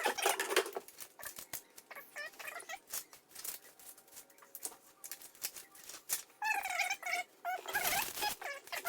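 Irregular clicks, knocks and rattles of dethatcher parts being handled and fitted during assembly. Two short high-pitched calls break in about six and a half and eight seconds in.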